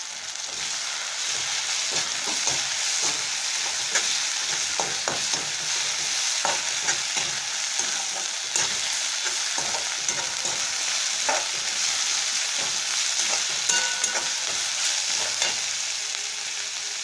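Onion, tomato and dried red chilli paste frying in hot mustard oil in a pan, sizzling steadily and getting louder about half a second in. A spatula stirs and scrapes against the pan in frequent short clicks.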